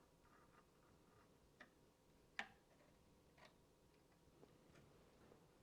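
Near silence broken by a few faint, short clicks and taps from small computer parts being handled, the loudest about two and a half seconds in.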